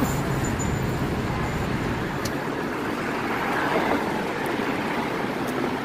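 Steady vehicle and traffic noise, an even hiss with no distinct events apart from a faint click about two seconds in.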